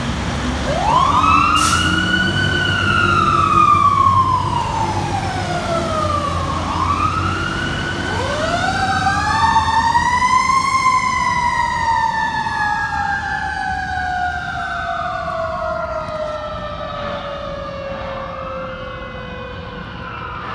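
Fire truck's mechanical siren winding up and slowly coasting down again and again, long rising-then-falling wails that overlap one another, over the low running of the truck's diesel engine. The wails grow fainter over the last several seconds as the truck pulls away.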